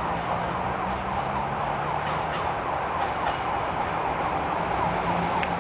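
Distant General Electric diesel locomotive with a low, steady engine hum. Over it runs a continuous chorus of short, high, falling chirps.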